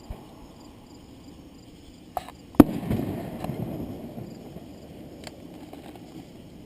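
Firework shell bursting with a single loud bang about two and a half seconds in, just after a smaller pop. Its rumble echoes and fades over the next couple of seconds.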